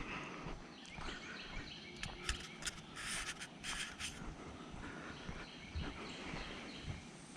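Small birds chirping in repeated short notes, with a few brief, higher, rasping bursts about two to four seconds in.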